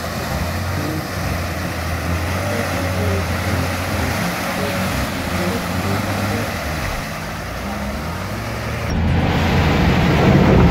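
Suzuki Vitara's engine running under load as the 4x4 ploughs through flooded mud, with water churning around the wheels. About nine seconds in the sound changes suddenly to a louder rush of water hitting the windshield, heard from inside a car.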